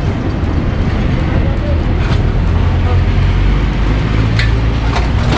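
Street noise: a steady low rumble of road traffic, with faint voices in the background.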